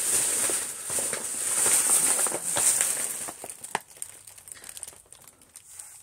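Thin plastic carrier bag rustling and crinkling as it is handled, dying down to faint rustles about halfway through, with one sharp click.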